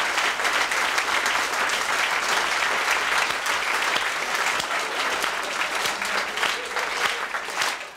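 Theatre audience applauding: dense, steady clapping of many hands that thins out near the end.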